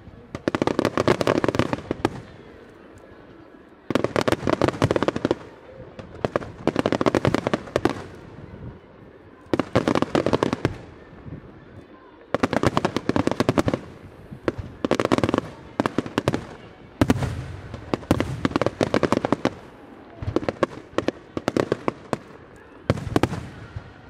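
Aerial firework shells bursting into crackling stars: about nine rounds of dense, rapid crackling, each a second or two long, recurring every two to three seconds with a quieter rumble between them.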